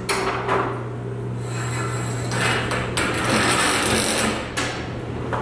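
Halves of a broken garage door torsion spring sliding and scraping along the metal torsion tube, with a few sharp metallic knocks.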